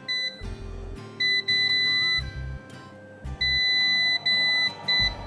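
Electric oven's touch control panel beeping as its buttons are pressed to set the top heating function. About six steady, high electronic beeps, some short and two held for most of a second, over background music.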